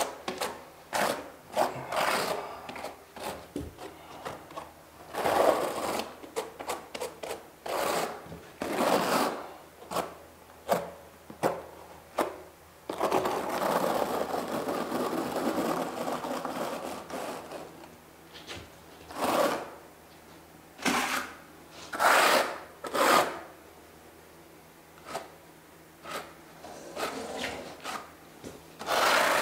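Steel tile trowel scraping and spreading thinset mortar across a flat bench surface in quick, irregular strokes, with a longer continuous scrape about 13 seconds in.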